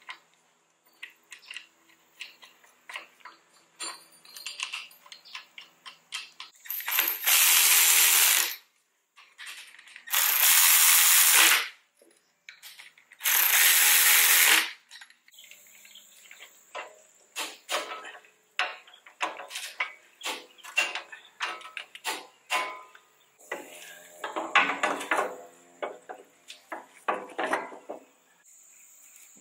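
Handheld power tool running nuts down onto a leveling-kit spacer's studs on top of a front strut, in three bursts of about two seconds each. Before and after the bursts there is quick metallic clicking and clinking from hand tools and hardware.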